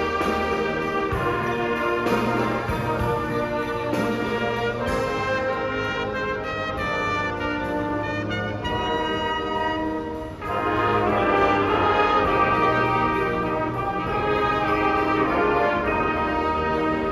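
Marching band brass section playing held chords, with trumpets and trombones. A short break comes about ten seconds in, then the band comes back in louder.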